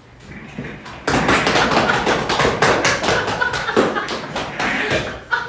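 A rapid run of hand slaps on a body, many a second, starting about a second in and lasting about four seconds.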